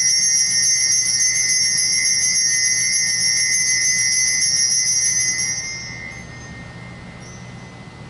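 Altar bells shaken in a fast, steady jingle, marking the elevation of the consecrated host. The ringing stops about five and a half seconds in and fades, leaving a low steady hum.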